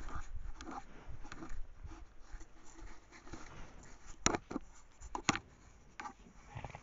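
An elk's coat rubbing and brushing against a trail camera's housing at close range: uneven scraping and rustling with low bumps, and two sharp clicks on the case about a second apart past the middle.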